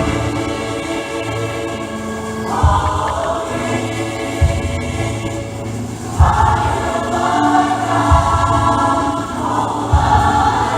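Church choir singing a Christmas cantata song over a band accompaniment, the sung phrases swelling and fading, with low beats about every two seconds.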